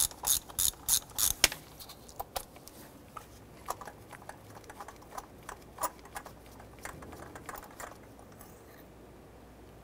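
Hand ratchet clicking in quick, even strokes, about three a second, as it loosens a spark plug on a spark plug socket and extension; it stops about a second and a half in. Scattered light metal clicks and taps follow as the extension is turned by hand to back the plug out.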